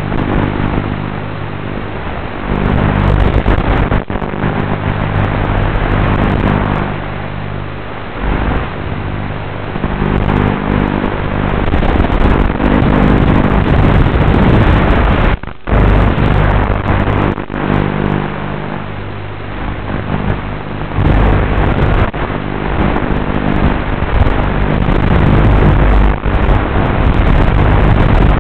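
FPV quadcopter's electric motors and propellers running in flight, a buzzing whine whose pitch rises and falls with the throttle. The sound briefly drops out twice, about halfway through.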